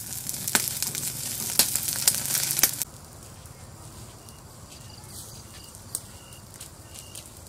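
Squid grilling on a wire rack over a charcoal fire, sizzling and crackling with sharp pops. This cuts off suddenly about three seconds in, leaving a quieter background with a short high chirp repeating about every half second.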